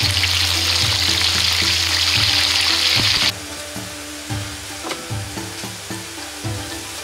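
Gyoza deep-frying in hot oil in a wok, a loud steady sizzle that cuts off suddenly about three seconds in. Background music of short repeated notes runs underneath and carries on alone after the sizzle stops.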